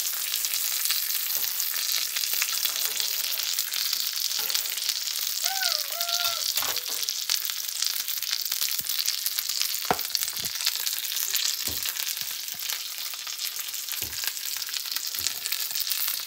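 Beef rump roast searing in a hot frying pan: a steady fat sizzle, with a few light clicks scattered through.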